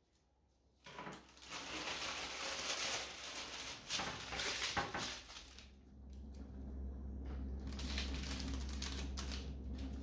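Objects being handled, with clattering, rustling and sharp clicks starting about a second in; a steady low hum joins about six seconds in.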